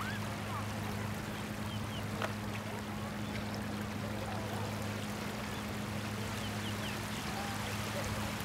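Sea waves washing steadily onto a beach, an even wash of surf with no breaks, over a low steady hum.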